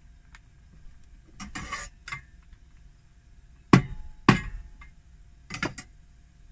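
Seasoning packet crinkling, then sharp knocks of a cleaver striking a wooden cutting board, two about halfway through and two more near the end, as the packet is cut open.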